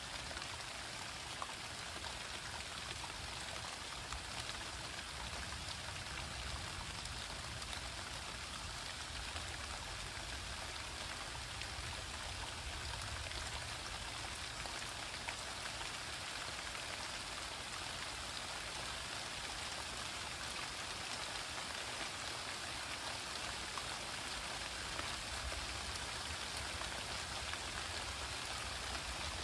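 Steady rain falling during a thunderstorm, with the patter of individual drops ticking through it.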